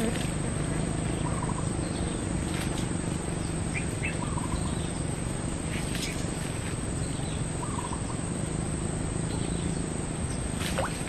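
Outdoor forest ambience: a steady hiss and low hum with a small bird's short chirps repeating every few seconds, and a few faint clicks.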